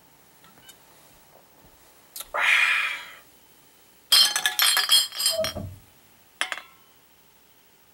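Empty glass beer bottles clinking and ringing against each other as a bottle is put down on a pile of empties, a cluster of clinks followed by one last clink. Before it, a loud, short rush of noise lasting under a second.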